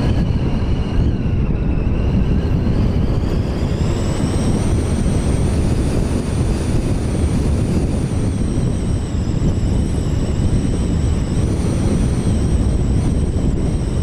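Car driving along a gravel road: a steady rumble of tyres on loose gravel and engine noise, with a faint high whine that climbs in pitch about four seconds in.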